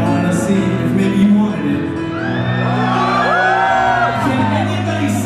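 Live pop-rock band playing through a hall PA, with vocals over it. In the middle, high arching voice lines glide up and down above the band.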